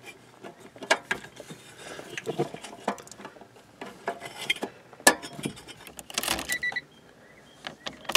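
Light clicks, knocks and scrapes from a metal engine computer case being handled and fitted into its bracket under the dash, then keys jangling as a car key goes into the ignition near the end.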